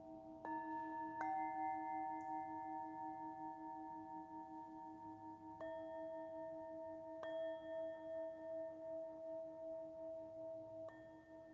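Tibetan singing bowls of different pitches struck five times, one after another, each strike ringing on in long overlapping tones. Beneath them a low bowl tone hums throughout with an even wavering pulse.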